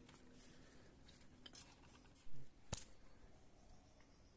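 Dry roti being torn and broken by hand: faint crackling and snapping, with a short dull thump and then a single sharp snap a little past two seconds in.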